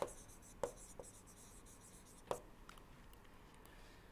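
Faint taps and scratches of a stylus writing on a tablet screen, with a few light ticks, the clearest about two seconds in.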